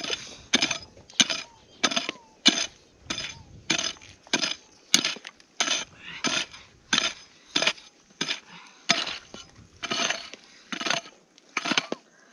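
A digging tool striking the ground again and again, about two sharp knocks a second with a gritty clink, digging a hole down to a metal detector target.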